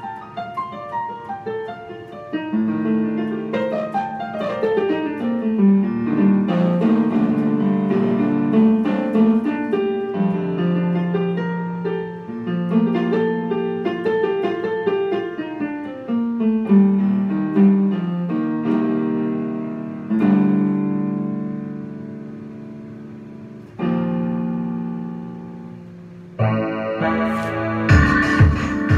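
Keyboard playing slow, decaying electric-piano chords and melody lines, with a falling run about five seconds in. Near the end a drum beat comes in.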